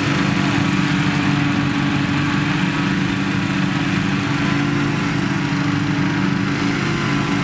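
Petrol-engined balloon inflator fan running steadily at constant speed, blowing cold air into a hot-air balloon envelope during cold inflation.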